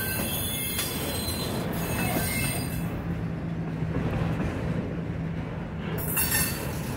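Freight train of autorack cars rolling past close by, steel wheels on rail with a steady rumble. High-pitched wheel squeal rings out through the first few seconds and flares again briefly near the end.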